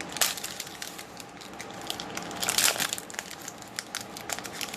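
Plastic wrapper of a football trading card pack crinkling and crackling as it is torn open and crumpled by hand, with a louder burst of crackling about two and a half seconds in.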